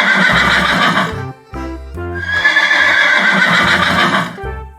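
Horse whinnying twice, two long neighs: the first ends about a second in, the second starts halfway through and lasts about two seconds.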